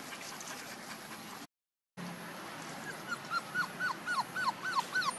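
Month-old puppies whimpering: a quick run of short, high, squeaky whines, several a second, starting about three seconds in. Before that the sound cuts out briefly for about half a second.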